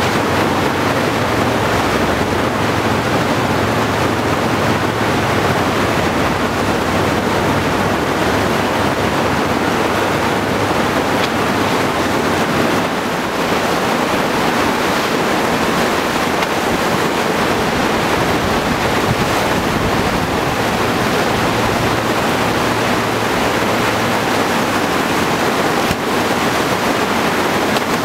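Whitewater of a river standing wave rushing steadily as the current breaks over the wave feature.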